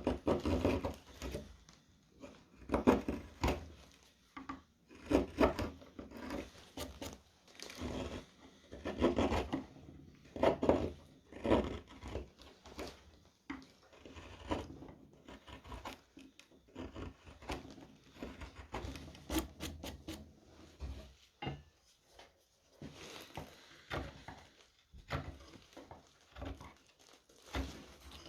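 Hand gouges (round chisels) cutting and scraping into a wooden spoon, a run of short, irregular paring strokes.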